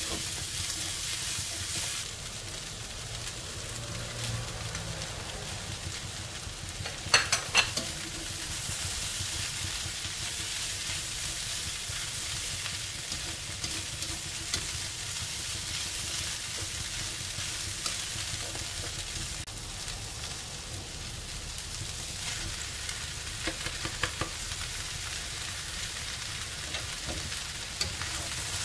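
Pork, Chinese long beans and mushrooms sizzling in a hot wok while a slotted spatula stirs and scrapes them. A few sharp knocks about seven seconds in are the loudest sounds, with smaller clicks of the spatula later.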